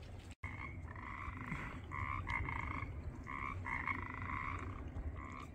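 Frogs croaking at a spring-fed pond: a run of repeated pulsed croaks, each well under a second long, starting about a second in.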